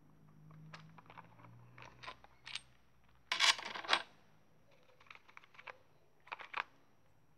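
Handling noise: scattered light clicks and taps of hard objects, with a short louder clatter about three and a half seconds in and a few more clicks near the end.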